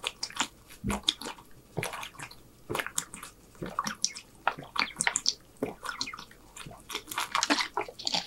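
A person gulping water from a plastic water bottle, heard up close: a run of irregular wet gulps and swallows.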